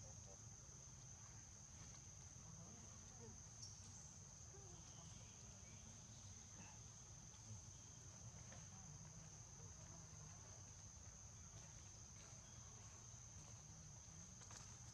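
Near silence apart from a faint, steady, high-pitched insect drone, with a low rumble of background noise underneath.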